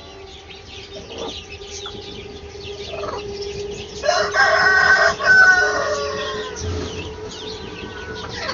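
A rooster crowing once, starting about four seconds in: one long call of about two and a half seconds that falls away at the end. Fainter chicken clucks come before it, and faint high chirping runs underneath.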